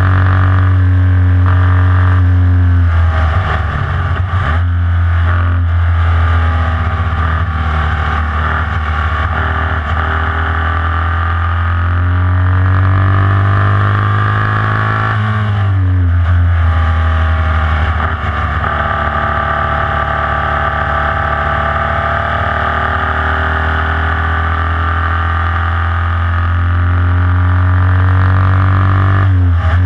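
Formula Vee race car's air-cooled Volkswagen flat-four engine running hard at high revs, heard from the cockpit. The revs drop and climb back about three seconds in and again about halfway, with a brief dip near the end.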